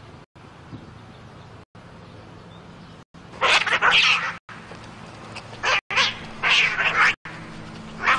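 Two cats fighting: after about three quieter seconds, a run of harsh, hissing screeches, the first and longest about three and a half seconds in, then two shorter ones as they grapple.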